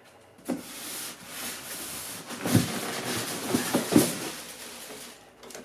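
Cardboard packaging of a boxed table saw being pulled and handled: rustling and scraping, with a few knocks about halfway through.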